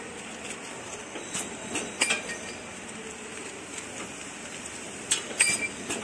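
Flow wrapping machine running steadily, with sharp clicks and clinks as film-wrapped metal door handles are picked up and handled, a cluster about two seconds in and another near the end.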